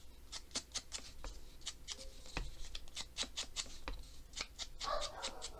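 Small pieces of paper ephemera handled and sorted on a tabletop: a string of quick, irregular crisp paper clicks and rustles, with a short burst of rustling near the end.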